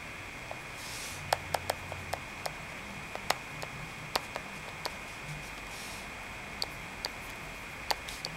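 Plastic stylus tip tapping and clicking on a tablet touchscreen while handwriting, a dozen or so sharp irregular clicks as the pen lands and lifts between strokes, over a steady faint high-pitched tone.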